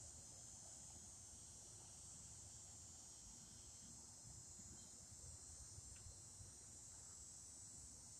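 Near silence with faint, steady high-pitched insect chirring, like crickets.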